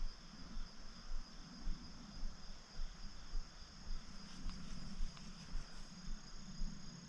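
Insect chorus: a steady, high-pitched drone of two tones, the higher one growing stronger about six seconds in. Irregular low thumps run beneath it.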